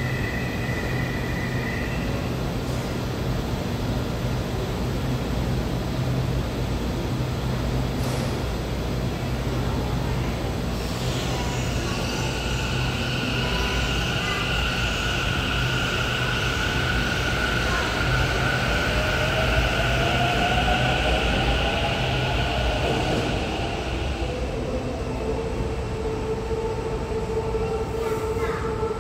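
Taichung MRT Green Line electric train pulling out of the station: a steady electric whine sets in about a third of the way through, with a rising tone as the train gathers speed, then fades, over a constant low hum. A short steady high tone sounds in the first two seconds.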